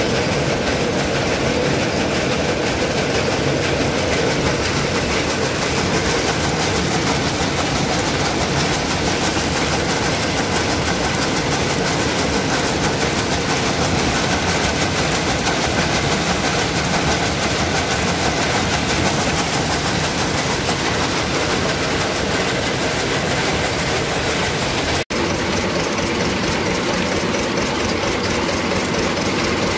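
Peanut shelling machine running steadily: a continuous machine drone with a dense rattle of pods and kernels through the shelling drum and sieve. There is a brief cut-out about 25 seconds in.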